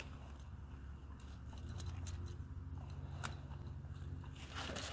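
Faint jingle and clicks of a dog's collar tag and studded collar as a Weimaraner sniffs a stick in dry leaves, with a few light leaf rustles over a steady low rumble.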